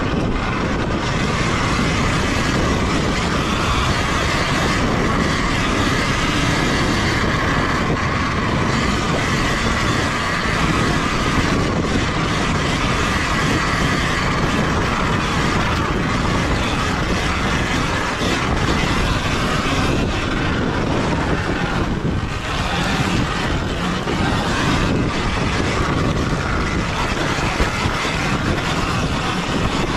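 Sur-Ron Ultra Bee electric dirt bike ridden steadily along a rough, rocky trail: the electric drive's steady running noise with the tyres and chassis rattling over stones, under wind noise on the microphone.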